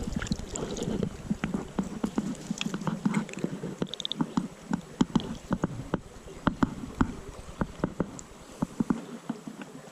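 Irregular small clicks and light knocks, several a second, from handling a freshly caught brown trout and fishing tackle, with soft rustling between them.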